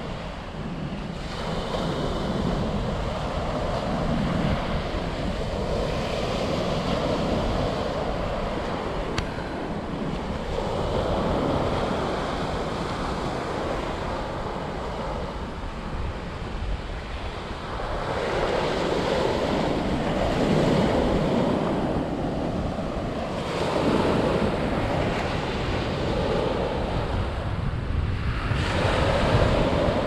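Ocean surf: small waves breaking and washing up a sandy beach, swelling and easing every few seconds, with a steady rumble of wind on the microphone.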